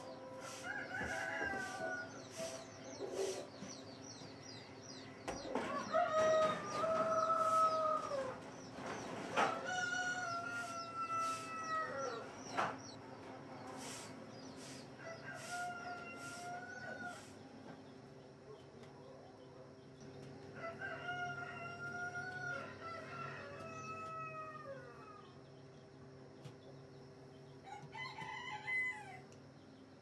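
Roosters crowing over and over, about seven long crows spread through the half-minute, some overlapping, with short clucks from hens between them.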